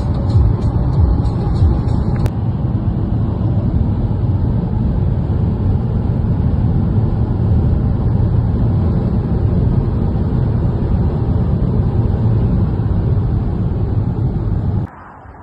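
Steady road noise inside a car cruising on a highway: an even, low rumble of tyres, engine and wind. It cuts off abruptly near the end.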